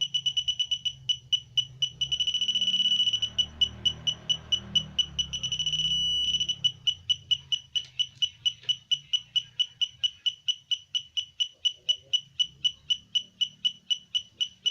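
Kolibri-type pulse-induction metal detector's audio: short, high beeps of one pitch at about four a second, quickening about two seconds in into a near-continuous tone for about four seconds, with a low rumble underneath, then dropping back to even beeps. The quickening is the detector's signal of a metal target.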